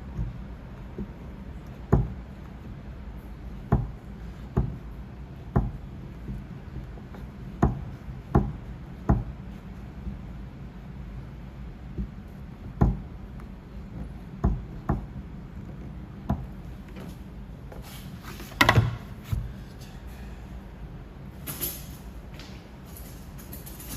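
Light sharp knocks of paintless dent repair tools on a car's rear door panel, one every second or two at an uneven pace, with a louder quick cluster of knocks about three-quarters of the way through.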